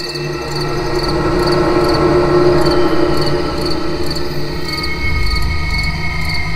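Night chorus of crickets chirping in even pulses, about two a second, over a low steady drone, fading in over the first couple of seconds.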